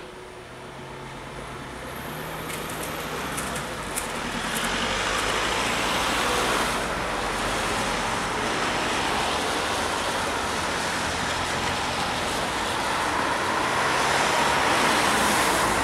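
Cars driving over a level crossing on a wet road, their tyre hiss building over the first several seconds and then holding steady as vehicles pass one after another. A few sharp ticks sound between about two and five seconds in.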